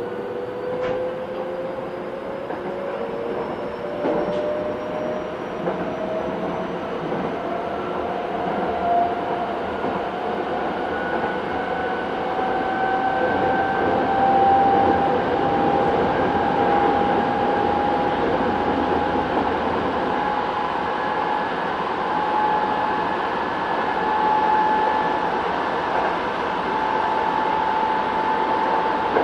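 Kobe City Subway 1000 series car under way, heard from inside: the Hitachi GTO inverter and traction motors whine in several tones that climb slowly as the train gathers speed, over a steady rumble of wheels on rail.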